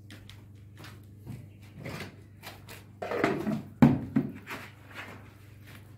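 White plastic poultry drinker being handled and turned over after filling with medicated water: scattered plastic clicks and knocks, with a burst of handling noise past the middle and a sharp knock about four seconds in.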